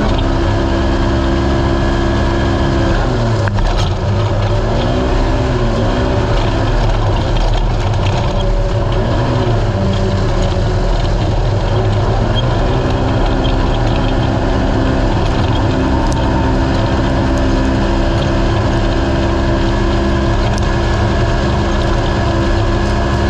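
Naturally aspirated race UTV engine running hard under a heavy low rumble. For several seconds, starting about three seconds in, its pitch swings up and down with the throttle, then it holds a steady pitch again.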